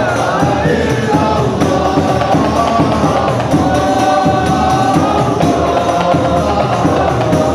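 Large group of men singing a devotional Arabic song together, many voices in unison carrying a slow, sustained melody.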